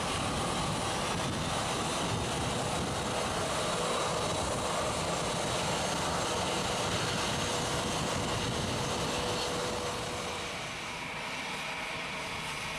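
Jet engine noise from a four-engine Airbus A380 on the runway, a steady rumble with a faint hum that fades out about ten seconds in, where the sound drops a little.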